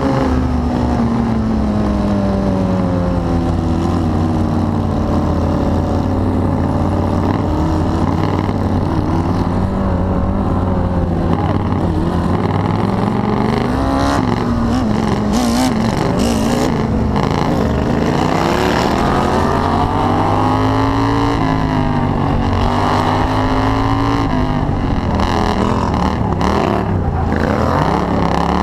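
Racing ride-on lawn mower engine running hard at high revs, its pitch rising and falling over and over as it accelerates down the straights and eases off into the corners, with occasional short bursts of rattling noise.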